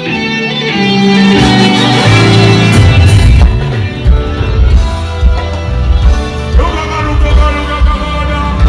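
Live band playing through a stage PA during a sound check, with guitar and a heavy bass line.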